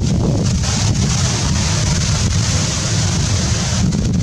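Wind buffeting the microphone: a steady, rough low rumble with a hiss over it.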